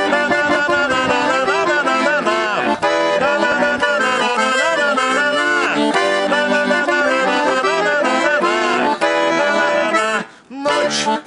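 Bayan (Russian chromatic button accordion) playing an instrumental interlude of a song melody, with a brief pause about ten seconds in before the playing resumes.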